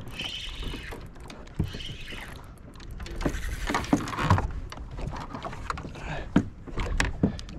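Water slapping against the hull of a small boat, with scattered knocks and clatter of fishing gear being handled in the boat.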